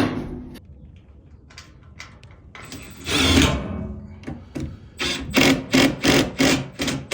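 Hand-tool plumbing work: one long scraping stroke about three seconds in, then a run of quick rasping strokes, about three a second, from about five seconds in.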